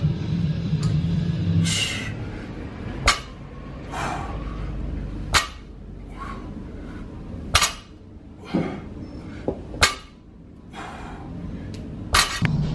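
Barbell loaded to 135 lb knocking its plates down on the gym floor five times, about every two seconds, once per deadlift rep, with hard breaths between the reps.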